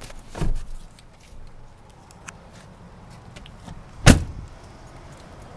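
A dull thump about half a second in, then a single loud slam about four seconds in: the rear passenger-side door of a 2012 Chevrolet Silverado 1500 crew cab pickup being shut.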